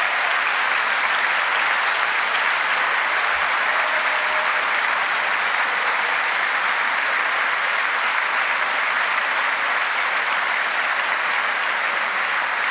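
Large audience applauding steadily, a sustained dense clapping.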